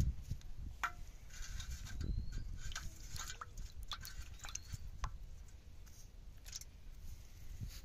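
Small fish splashing and flapping in a shallow metal bowl of water, with scattered clicks and taps and a low rumble of hands working close to the microphone.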